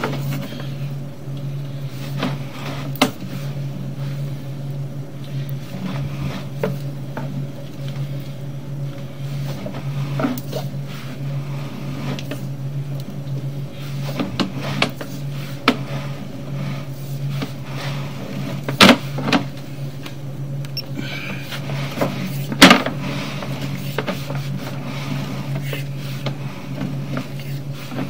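Sewer inspection camera push cable being pulled back out of the drain line, with scattered clicks and knocks over a steady low hum; two louder sharp knocks come in the last third.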